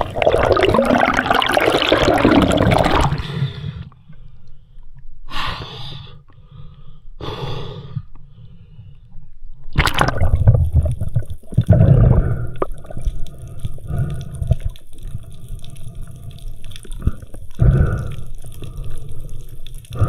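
Muffled water noise heard through an underwater camera: bubbling and sloshing in bursts, loud through the first three seconds, two short bursts in the quieter middle, then busy again from about ten seconds in.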